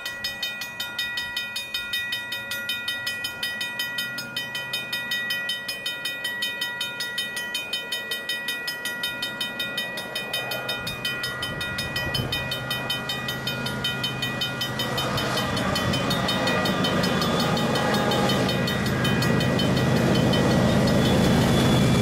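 Level-crossing warning bell ringing in a fast, steady beat. From about halfway on, the rumble of an approaching freight train's GE diesel locomotives grows louder until it drowns the bell as the locomotives pass.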